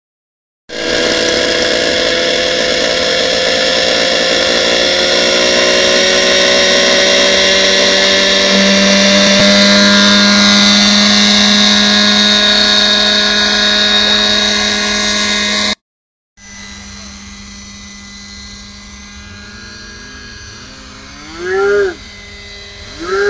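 Radio-controlled scale model helicopter running: a steady, loud whine from the motor and rotors with several pitched tones, the pitch creeping up as it spools up and lifts off. After a break about 16 s in it is fainter as the helicopter flies farther off, with two brief rising-and-falling swells near the end.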